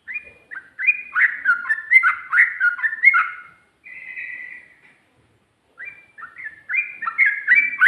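Yellow-vented bulbul (trucukan) singing rapid, bubbly runs of quick whistled notes in two bursts, with a softer drawn-out note and a short pause between them.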